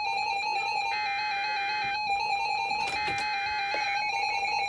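Several NOAA weather alert radios sounding their alarms together: a steady electronic tone warbling quickly between two close pitches, with a second alarm beeping on and off about once a second.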